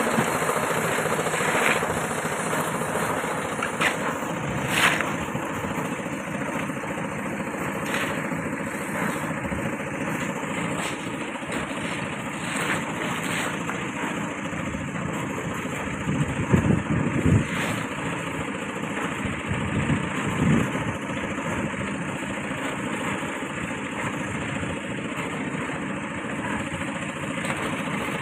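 A construction site: an engine runs steadily, with scattered short knocks and a louder patch of scraping and clatter past the middle as workers shovel and handle material.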